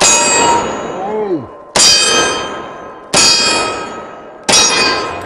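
Four revolver shots about 1.4 s apart, each striking a steel plate target that rings out with a metallic clang and fades before the next shot.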